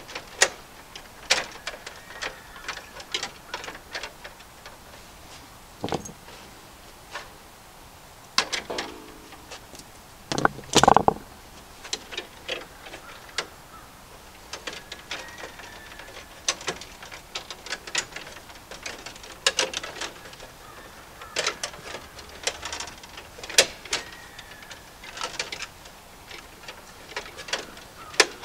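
Irregular clicks, taps and small scrapes of hand work on electrical wiring: wires, pliers and a plastic wire nut being handled and twisted at an electrical panel, with one louder, longer rub about ten seconds in.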